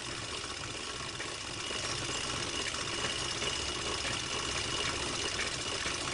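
Steady mechanical whirr and hiss with a faint high whine and light irregular ticking, with no voice.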